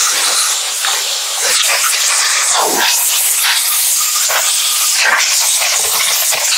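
Compressed air hissing from a blow gun on an air hose as it blasts dust off a chainsaw; a loud, steady hiss.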